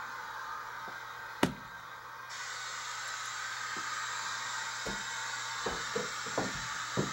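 Steady room hiss with a low hum, broken by one sharp knock about a second and a half in and a cluster of lighter knocks and clicks near the end.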